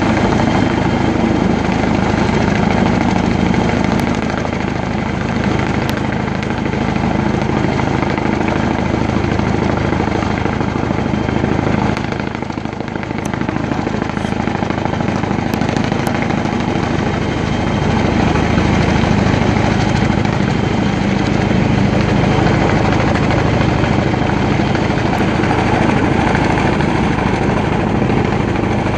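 Boeing Vertol CH-46 Sea Knight-type tandem-rotor helicopter hovering with a load on its long line, its twin turboshaft engines and two rotors running steadily and loud. The sound eases off slightly about twelve seconds in, then comes back up.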